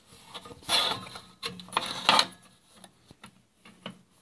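Handling noise of metal tools on a table saw top as a miter gauge and digital protractor are set in place: two scraping rubs about a second apart, with light clicks and taps around them.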